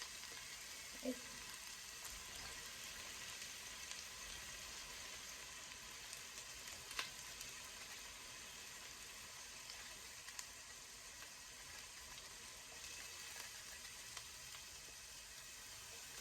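Chopped onions sizzling in hot oil in a pot, a faint, steady hiss with a few light ticks.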